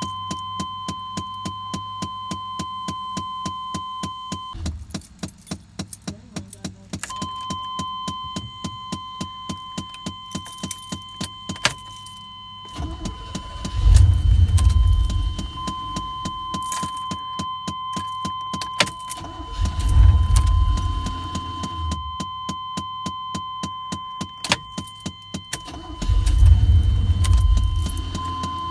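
1991 Chevrolet Scottsdale pickup being started over and over, with three bursts of about two seconds of the starter cranking the engine, near the middle, a little later, and near the end. Under them a steady warning tone and fast regular ticking run on. The starter has a dead spot from a bad solenoid, so it works only on some turns of the key.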